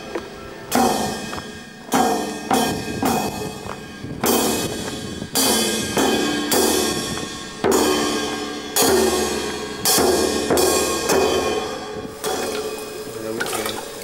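Music with a strong struck or strummed beat about once every second, each beat ringing and fading before the next, over sustained pitched notes.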